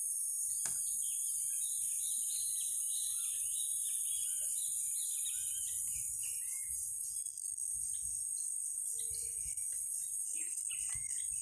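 Insects trilling steadily in a high, unbroken drone, with birds chirping and twittering over it, busiest in the first half. A single light click sounds under a second in.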